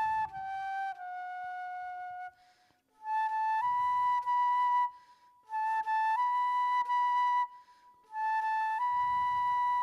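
A flute playing a slow melody in short phrases of held notes, with brief pauses between them; several phrases step upward in pitch.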